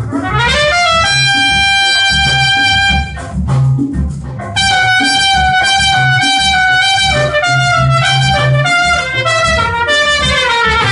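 Jazz trumpet solo over the band's bass and drums. The trumpet slides up into a long held high note, breaks off for a moment about three seconds in, then comes back with held notes and falling phrases, ending on a descending run.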